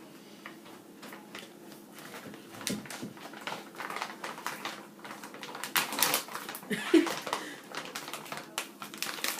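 Frozen strawberries being handled for a blender: irregular clicks, taps and light rustles that grow busier after a couple of seconds.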